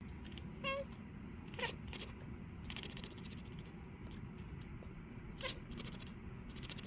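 Maine Coon cat chirping: three short, pitched chirps, two close together in the first two seconds and one more about five and a half seconds in.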